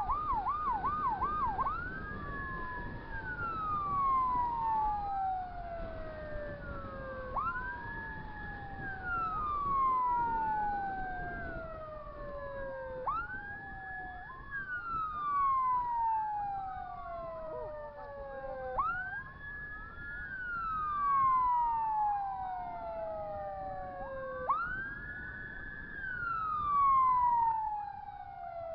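Two electronic emergency sirens sounding together: a fast yelp for the first second or so, then wails that rise quickly, hold briefly and fall slowly, repeating about every five and a half seconds, with a second wail running out of step with the first.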